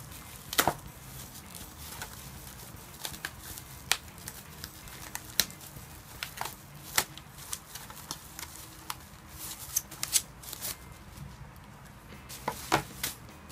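Bubble wrap and plastic packaging crinkling and crackling as it is pulled open by hand, with irregular sharp clicks.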